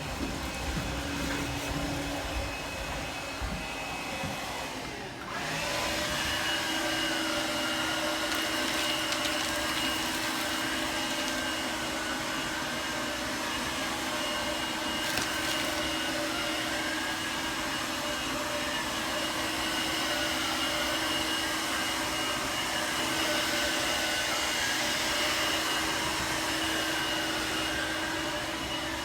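Shark Navigator Freestyle SV1106 cordless stick vacuum running steadily while vacuuming carpet. About five seconds in, its sound dips briefly and comes back slightly louder with a changed, steady motor note.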